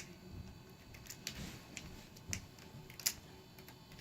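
Scattered light clicks and taps of hands handling computer hardware during a memory upgrade, uneven in spacing, with the sharpest click about three seconds in.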